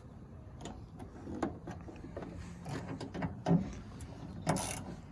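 Socket ratchet wrench clicking in short, irregular strokes as it works a bolt in a pickup's door pillar, with handling knocks; a sharper knock about three and a half seconds in and another a second later.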